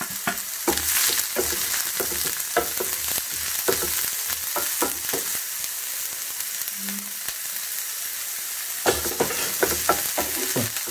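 Sliced onions sizzling in hot coconut oil in a non-stick frying pan, with a wooden spatula scraping and stirring them in quick strokes through the first half, a pause, then again near the end.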